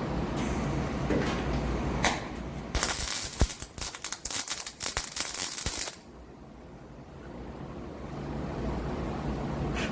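An electric welding arc crackling for about three seconds, a burst of welding that tacks a sheet-steel wheel-arch repair panel in place. It sits between stretches of a steady low hum.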